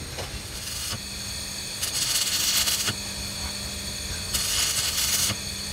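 Stick welding on a broken pinion gear's teeth: the electrode arc crackles and hisses in two short runs of about a second each, laying weld to rebuild the teeth. A steady low hum runs underneath.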